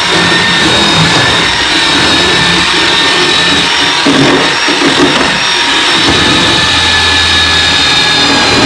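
Chainsaw running steadily with a high motor whine, its load rising and falling as it cuts into the wooden core of a boat transom.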